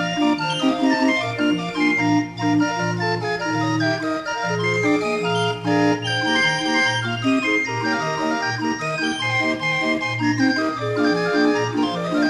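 Barrel organ (a Binche 'viole') playing a traditional 'air de viole' tune, with a rhythmic bass and chords under a piping melody.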